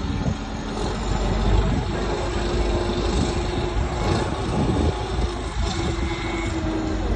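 A vehicle engine running steadily, a low rumble with a steady hum over outdoor noise.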